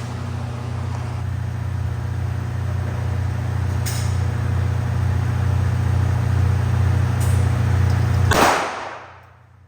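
A steady low mechanical hum, slowly growing louder, with a few faint clicks. Near the end a loud rushing noise swells and then cuts off abruptly.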